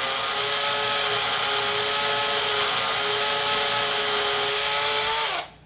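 Cordless drill running at a steady speed, boring a small pilot hole into Baltic birch plywood with a twist bit. The motor whine holds one pitch, then drops slightly and stops shortly before the end.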